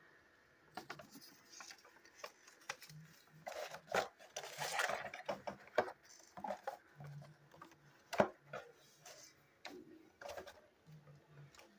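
Handling noise: a paper instruction leaflet rustling as it is folded and a cardboard toy box being moved on a table, with scattered taps, a denser rustle about four to five seconds in and a sharp knock about eight seconds in.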